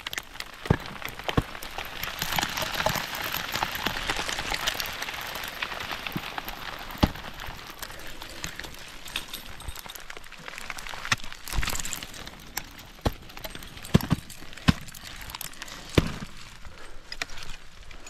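Technical ice axes, and the climber's crampons, biting into waterfall ice: about a dozen sharp, irregular strikes spread through the stretch. A hissing rush runs underneath in the first few seconds.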